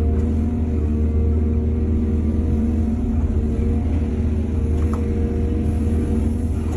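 Heavy diesel engine of an excavator running steadily, with a deep rumble.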